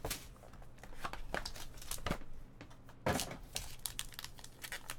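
Trading card pack wrappers crinkling and tearing as packs are opened, with scattered light clicks of cards and packaging being handled and a louder rustle about three seconds in.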